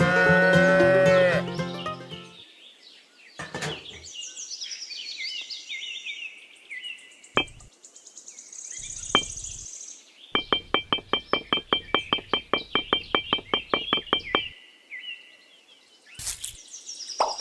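A cow mooing for about two seconds, followed by scattered high bird chirps and whistles, then a fast run of clicking chirps at about seven a second lasting some four seconds.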